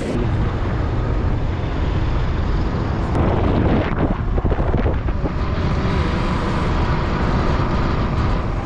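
A vehicle on the move: a steady low engine and road rumble with wind noise over the microphone.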